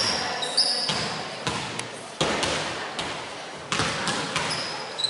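Several basketballs being bounced on a hardwood court, the thuds coming unevenly and echoing around a large hall, with a few short high sneaker squeaks on the floor near the start and near the end.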